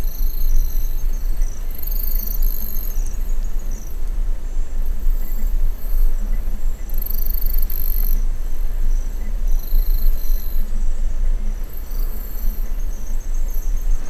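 Insects chirping: several high-pitched, pulsing calls that come and go every second or two, over a steady low rumble.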